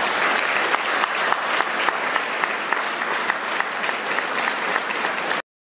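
Audience applauding, with many hands clapping at once; the applause cuts off abruptly near the end.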